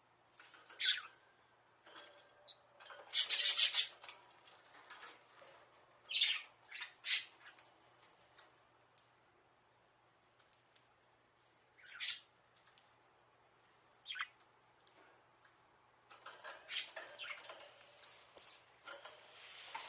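Budgerigars calling: short, sharp chirps scattered a few seconds apart, one longer harsher burst a few seconds in, and a busier run of chirps near the end.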